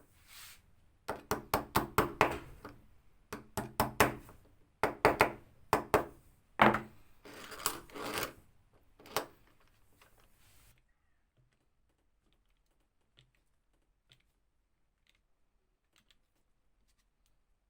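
Quick runs of sharp metallic clicks and knocks with a short ring after each, in several bursts, stopping about ten and a half seconds in; metal parts being handled or worked by hand.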